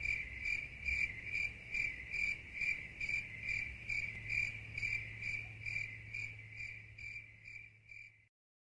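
A cricket chirping steadily, about two chirps a second, over a low hum. The chirps grow slightly fainter and stop abruptly near the end.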